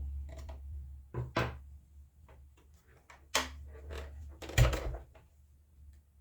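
Screws being driven and plastic sewing-machine covers handled: a few sharp clicks and knocks of tool and hard plastic, the loudest about four and a half seconds in, over a low hum that fades out near the end.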